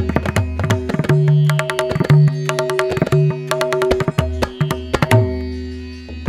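Background music with tabla drumming: quick strikes over a steady, sustained drone.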